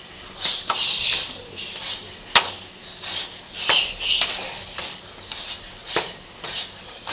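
Kickboxing sparring: kicks and punches slapping on bodies and gloves at irregular intervals, the loudest strike about two and a half seconds in, between short hissing sounds.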